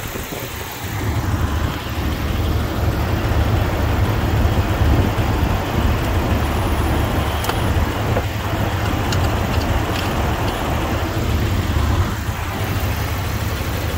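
2000 Jeep Wrangler TJ's 4.0-litre straight-six idling steadily, breathing through a velocity stack on its open throttle body. A few light clicks come in the second half as the intake clamp is tightened.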